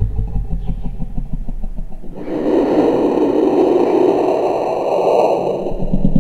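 Abstract electronic sound-design texture: a low, rapidly pulsing rumble that switches abruptly about two seconds in to a dense, noisy drone with faint steady high tones above it.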